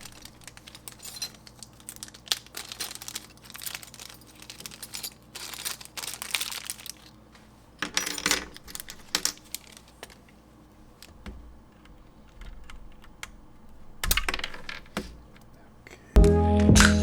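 K Pro banana mechanical switches being pulled out of the Keychron Q1 Pro's hot-swap sockets: irregular plastic clicks and scrapes in small clusters. Background music comes in near the end.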